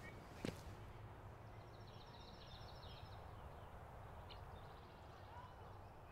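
Quiet outdoor ambience: a single footstep about half a second in, then faint bird twittering, twice.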